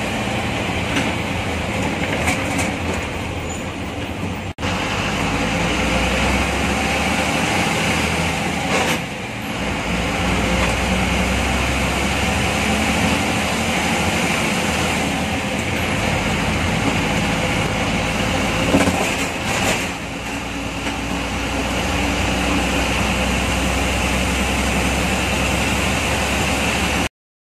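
MSRTC diesel bus running along a road, heard from inside the cabin: a steady engine drone with road noise and the rattling of the bus body. The sound cuts off suddenly near the end.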